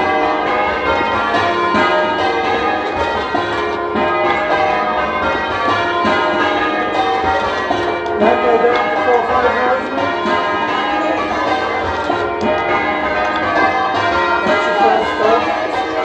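A ring of ten church bells (Warner and Mears bells, tenor 19 cwt in E-flat) being change rung, heard from the ringing room below the bells. The strokes come in a steady, overlapping stream, slightly muffled through the ceiling, with the clapper knock prominent on the back bells.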